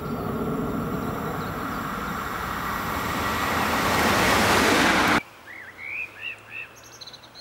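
Siemens Vectron electric locomotive in ELL livery approaching and passing close by on the main line: a rising rush of wheels on rail and running noise, loudest as it passes about four seconds in. The sound then cuts off suddenly, leaving a few bird chirps.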